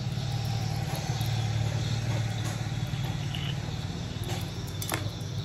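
Steady low engine hum with a rapid, even pulsing, like an idling motor, and one light click about five seconds in.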